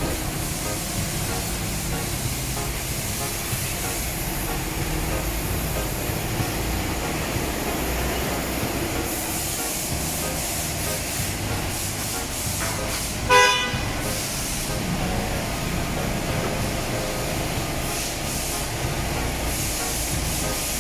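Water spraying on a car being washed: a steady rushing hiss over a low rumble, with one short horn-like toot about thirteen seconds in.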